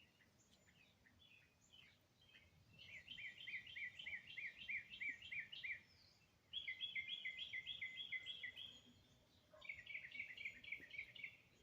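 A songbird singing three songs about a second apart, each a fast run of the same short two-note phrase repeated about ten times, with faint chips before the first.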